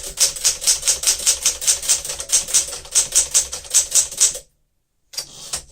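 1963 Smith-Corona Sterling manual typewriter being typed on at a fast, even pace of about five key strikes a second. The typing stops about four and a half seconds in, and a brief rasping noise follows near the end.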